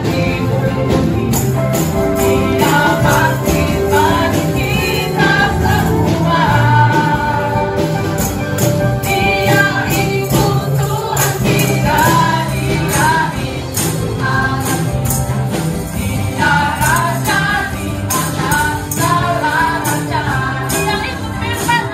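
A live worship song sung by a group of singers with a band, while many tambourines jingle and are struck in time with the beat.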